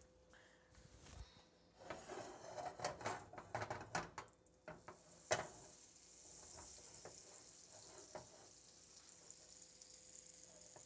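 Clicks and knocks of pan and utensil handling, loudest a sharp knock about five seconds in. Then butter and olive oil start to sizzle steadily in the frying pan as the butter melts.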